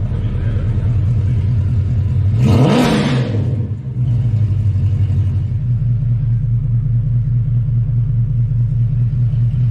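Mercedes C63 AMG V8 engine idling with a steady low rumble, blipped once about two and a half seconds in: a quick rev that rises and falls back to idle.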